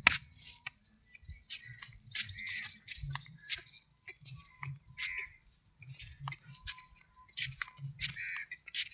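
Small birds chirping in short, repeated calls, with soft low thuds underneath and one sharp click right at the start.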